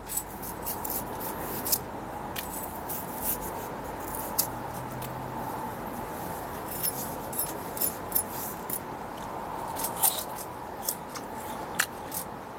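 Knife peeling and cutting a fresh pear: a scatter of short scraping and slicing clicks over a steady background hiss.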